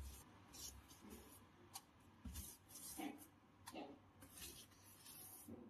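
Faint, scattered scratchy strokes of a brush spreading soapy water over refrigerator tubing, checking for bubbles at a leak.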